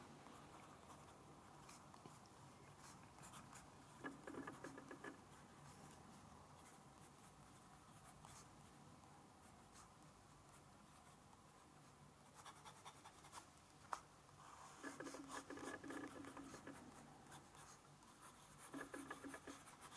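Broad (B) nib of a Kaweco Sport fountain pen faintly scratching on Fabriano Ecoqua paper, in several short spells of writing with pauses between them. One light tick partway through.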